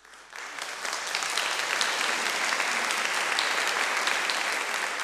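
Audience applauding at the end of a choral performance: clapping starts just as the music dies away, swells within the first second into dense, steady applause and holds.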